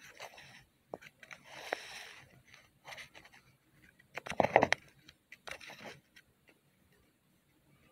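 Intermittent handling noises close to the microphone: a few short bursts of scraping and rustling with small clicks, the loudest about four and a half seconds in.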